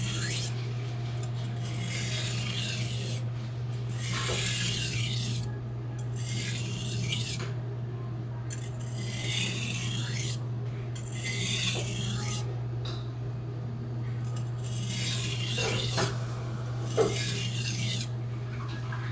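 Hand-forged Blue #2 carbon-steel kitchen knife being sharpened on a whetstone: repeated grinding strokes of steel across the stone, about one every one and a half to two seconds. A steady low hum runs underneath, and there is a sharp tap near the end.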